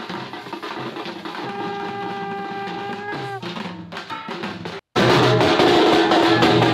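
Drums playing a fast steady beat, with a long held note over them for about two seconds near the middle. After a sudden break near five seconds the drumming comes back much louder.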